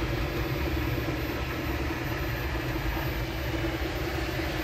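MakerBot Replicator desktop 3D printer running mid-print: a steady mechanical hum with a low, even drone.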